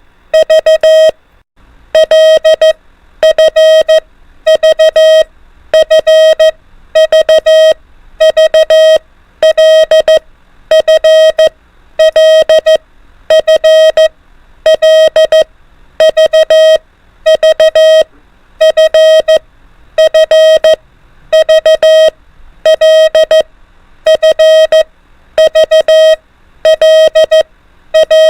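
Morse code (CW) practice tone sent at 24 words per minute: a steady mid-pitched beep keyed in quick dots and dashes, in short character groups about a second apart.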